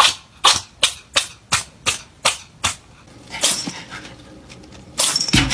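A cat sneezing in a rapid fit: about eight short, sharp sneezes, roughly three a second, then a longer, softer puff of breath. A louder burst of noise comes near the end.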